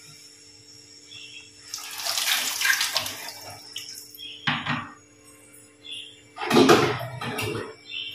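Water pouring and splashing in a steel kitchen vessel about two seconds in, followed by knocks and clanks of steel pots and jugs, the loudest near the end.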